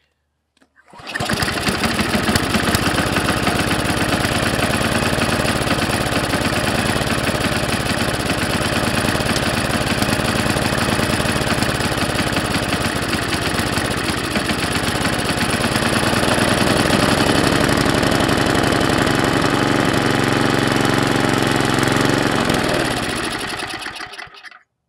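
MTD Yard Machines snowblower's small gas engine catching about a second in and running steadily at speed, then slowing and dying near the end. With the fuel shut-off closed, it is running the carburetor dry until it starves of fuel.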